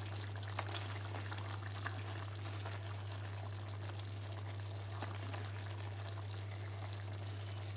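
Wooden spoon scooping chicken and gravy out of an enamelled pot and onto a plate of rice: soft wet scraping and a few faint taps, over a steady low hum and hiss.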